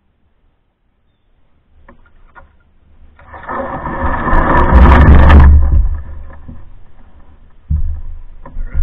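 A canoe's hull scraping over a sandy, gravelly bottom as it runs aground at a landing, loud with a deep rumble through the hull. It builds from about three seconds in and eases off after six, with a few light knocks before it and a sudden bump near the end.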